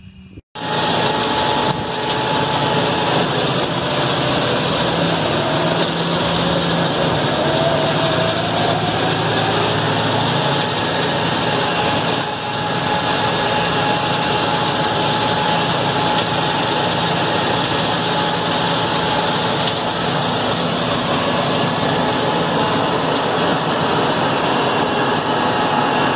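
Tractor engine and New Holland disc mower running steadily, a loud, even mechanical drone that starts abruptly about half a second in.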